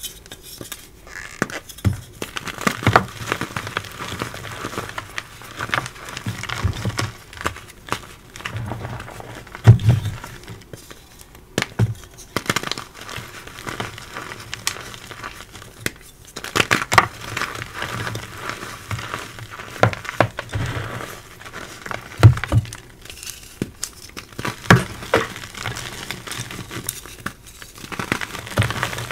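Reformed gym chalk being crushed and crumbled by hand: irregular crunchy, gritty crackling, with a few louder crunches as blocks break apart.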